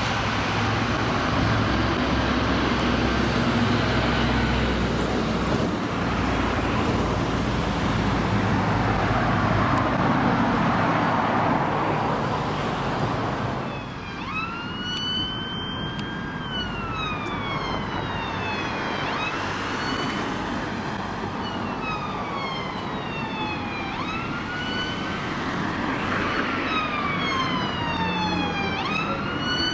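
Dense road traffic noise, then from about halfway a police car's electronic siren in wail mode, rising and falling in long repeating sweeps over the traffic.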